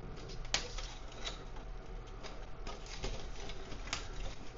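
Flush cutters snipping 3D-printed plastic parts off their sprues: a series of sharp clicks, the sharpest about half a second in and again just before the end, with light plastic handling noise between.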